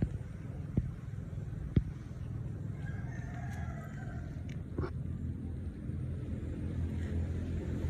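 Excavator's engine running steadily at low revs, with two sharp knocks about one and two seconds in.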